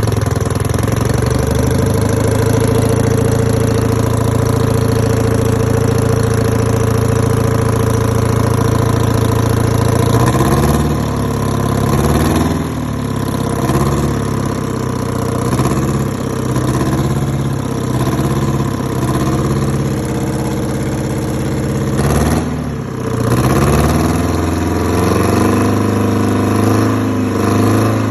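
Detroit Diesel two-stroke engine in a 1950 Oliver tractor, running steadily at idle, then revved up and down over and over through the second half, with a short drop in engine speed about three-quarters of the way through.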